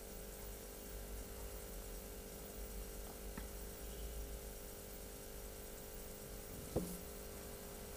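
Steady low electrical hum, with one short click near the end.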